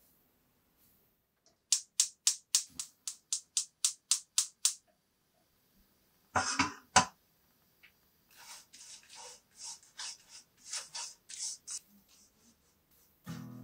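Gas stove igniter clicking rapidly about a dozen times before the burner lights, then a brief louder rattle, then dried anchovies rustling and scraping as they are stirred with a wooden spatula in a dry wok. Music starts near the end.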